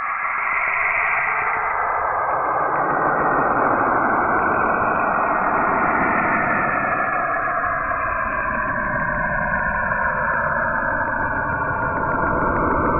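Saturn's radio emissions converted to audio: a steady rushing hiss with bands of tone that drift slowly up and down in pitch.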